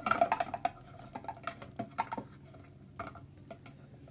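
Hands handling and opening a shipping package: a run of irregular clicks, taps and light rustles, busiest in the first second.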